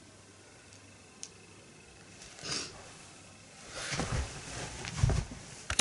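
A quiet room, then rustling and a few low thumps as a person gets up off a sofa.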